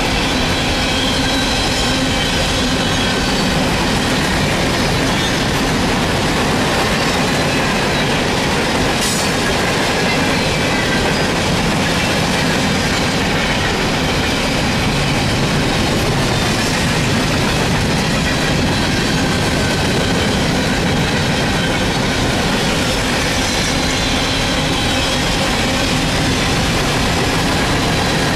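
Freight cars of a coal train rolling past at speed: a steady, loud rumble and clatter of steel wheels on rail, with faint high-pitched wheel squeal at times.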